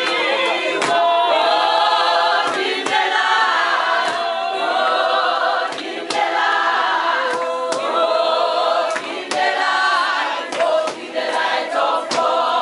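A crowd of people singing together unaccompanied, many voices at once, with sharp knocks cutting through every second or so.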